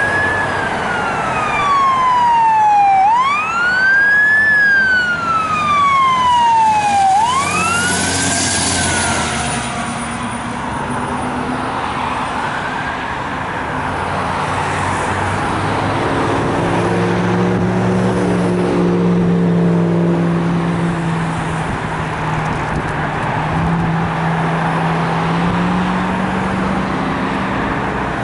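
Fire engine siren wailing, gliding slowly up and down about every three seconds, fading out after about nine seconds. Road traffic noise and a low engine drone follow.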